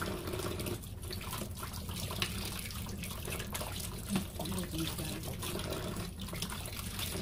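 Water running steadily from a tap into a sink, with small clinks and knocks scattered throughout.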